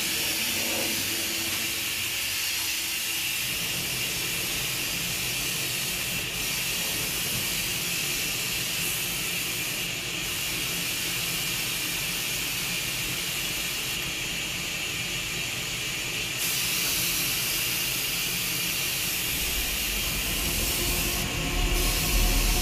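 Iwata airbrush hissing steadily as it sprays paint, the hiss turning brighter for a second or two a few times. A low rumble comes in near the end.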